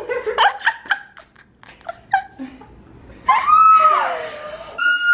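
Women laughing in excited delight, with a long high-pitched squeal about three seconds in and another short high squeal near the end.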